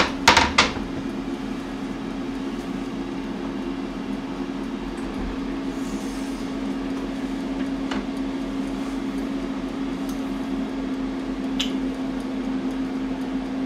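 Steady electric hum of a running kitchen appliance, with a few light clinks of dishes and utensils in the first second and a couple of faint clicks later.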